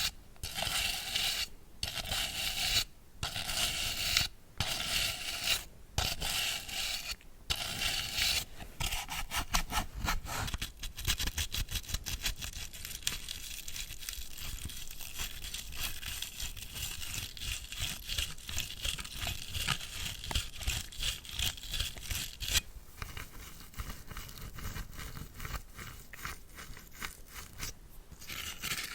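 A bristle brush scrubbing close to the microphone against a hard device surface. For the first eight seconds it moves in long strokes about a second and a half each with short pauses between, then it switches to fast, continuous back-and-forth scrubbing.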